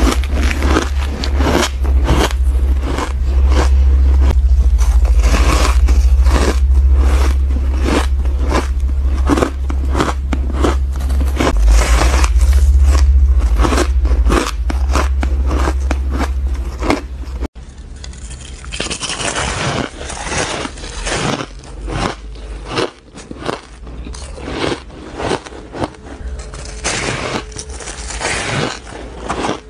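Close-miked biting and chewing of frozen ice, in rapid crunches one after another: first soft, fluffy powdered ice, then firmer chunks bitten from an ice block. A steady low hum sits under the first half and stops at a cut about halfway through.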